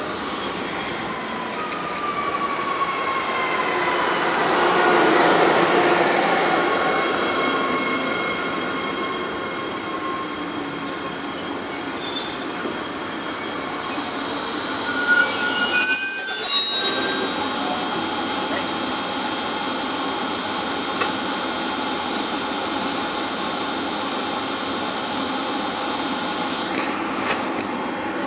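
Commuter train passenger cars moving at low speed alongside a platform, the wheels squealing on the rails in several high, shrill tones over a rumble. The squeal swells about five seconds in, with one tone sliding down, peaks again around sixteen seconds, then settles to a steadier, quieter rolling sound.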